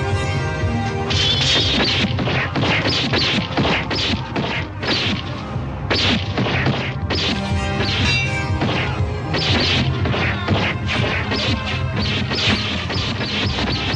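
Film fight sound effects: a rapid, dense run of sword blades clashing and striking, starting about a second in, over a film score with a steady low bass.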